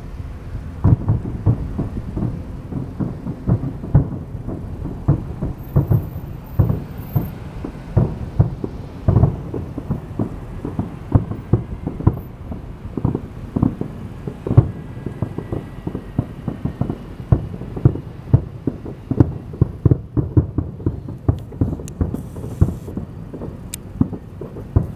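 Fireworks display: a rapid, continuous barrage of aerial shell bursts, booming several times a second.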